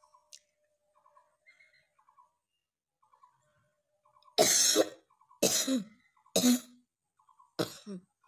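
A person coughing four times, about a second apart, in the second half; each cough is short and loud. The coughs are deliberate, made for a coughing challenge.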